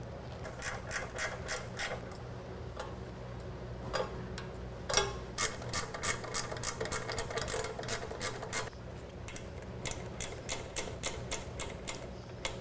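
Hand ratchet wrench clicking in quick, even runs as 3/8 nuts are run down onto mounting studs, with a couple of louder knocks of metal on metal.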